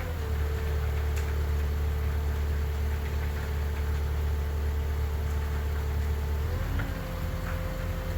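Diesel engine of heavy equipment running steadily. Its pitch sags slightly and its low rumble grows as it comes under load, then recovers about six and a half seconds in.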